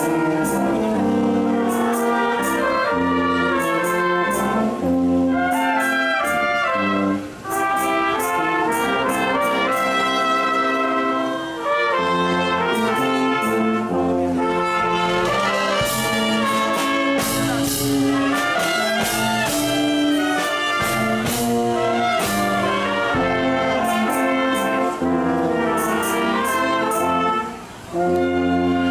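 Symphonic wind band playing, with brass to the fore, sousaphone and euphonium among it, and frequent percussion strikes. The music breaks off briefly between phrases three times: about a quarter of the way in, near the middle, and just before the end.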